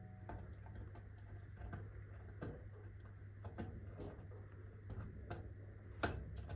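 A string of light, irregular clicks and taps, about two or three a second, with one sharper click near the end.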